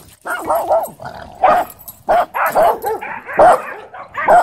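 Small dogs barking in a rapid string of short, high yaps, more than a dozen barks in quick succession.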